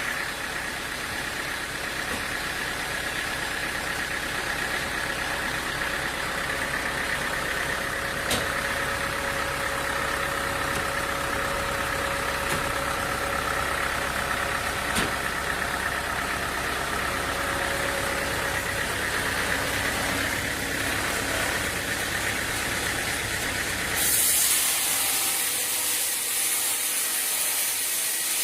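An engine running steadily, with a couple of sharp clicks. About 24 seconds in, it gives way abruptly to a loud, steady high hiss.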